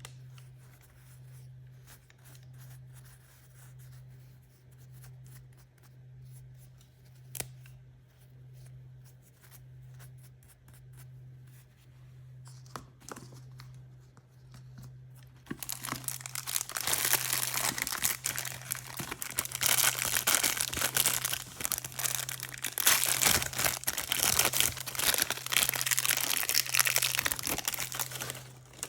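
Quiet handling with a few small clicks, then, about halfway through, surprise-toy packaging being torn open and crinkled loudly. A low steady hum runs underneath.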